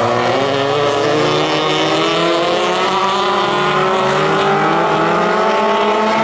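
Rallycross car engine running hard, its pitch climbing slowly as the car accelerates out of a corner.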